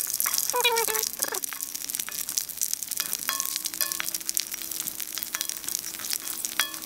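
Pieces of dried beef skin deep-frying in hot oil in a wok, crackling and sizzling as they puff up, while a wooden spatula stirs them.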